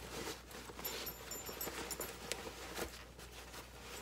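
Cotton fabric rustling as a lined fabric bag is handled and pulled about, with a couple of light clicks a little past the middle.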